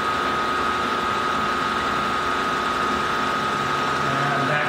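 Milling machine running with an end mill cutting a slot in a steel part: a steady high whine over an even mechanical hum.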